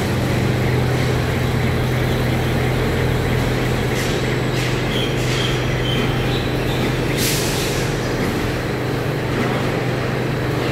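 Steady machinery hum in a precast concrete works: a strong low drone under a broad noise, with a few short high chirps about halfway through and a brief swish a little later.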